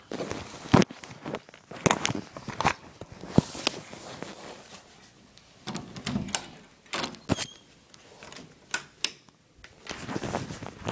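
Handling noise: irregular clicks, knocks and rustles as the phone is moved about and rubbed against.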